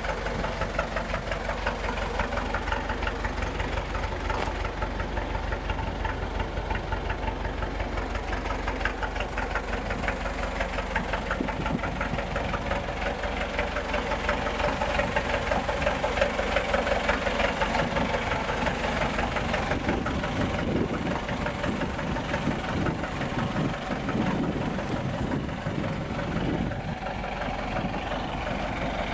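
IFA W50 truck's diesel engine idling steadily.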